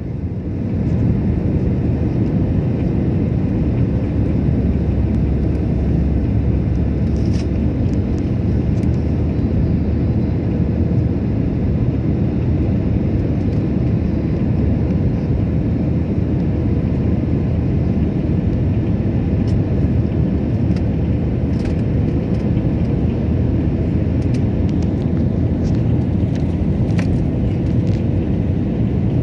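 Steady rumble of a jet airliner's underwing turbofan engines and rushing air, heard from inside the passenger cabin during the landing approach, with a faint steady hum.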